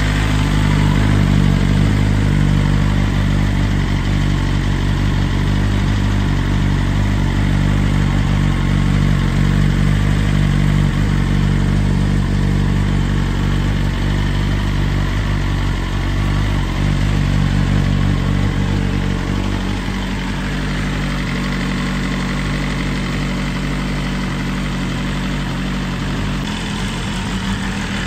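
BMW S1000RR Gen 4's 999 cc inline-four idling steadily through a Black Widow 200 mm slip-on end can with the baffle removed, still warming up after a cold start.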